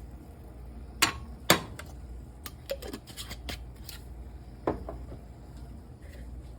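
Scattered sharp clicks and clinks of kitchen utensils and dishware: two loud taps about a second in, a few lighter ones, then another knock near the end.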